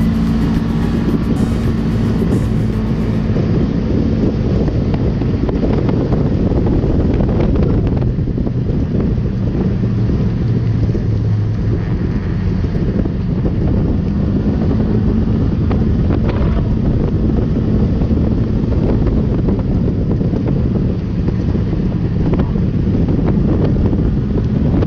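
Side-by-side UTV engine running steadily while driving over sand, with wind buffeting the microphone.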